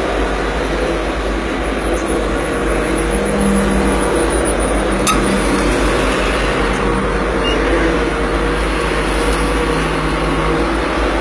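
Cat 140M motor grader's diesel engine running steadily, heard from inside the operator's cab as the blade is worked. A single sharp click about five seconds in.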